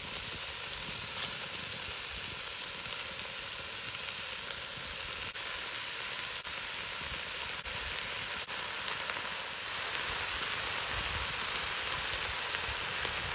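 Impala neck pieces and bacon sizzling on onions, celery and mushrooms in a hot cast iron potjie pot: a steady frying hiss with a few faint clicks in the middle.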